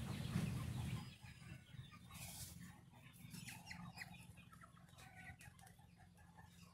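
Muscovy ducks in a pen making many short, soft clucking calls, scattered and overlapping. A low rumble fills the first second.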